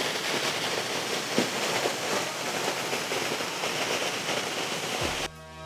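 Waterfall water rushing down in a steady, even hiss. Near the end the water sound cuts off and music with a low bass comes in.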